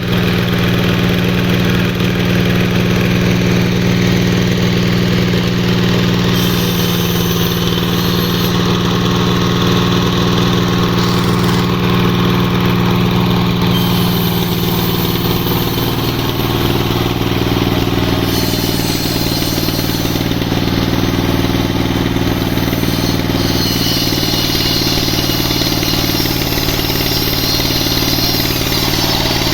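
Sawmill machinery's engine running steadily, its note shifting lower about sixteen seconds in, with a higher hiss coming and going above it.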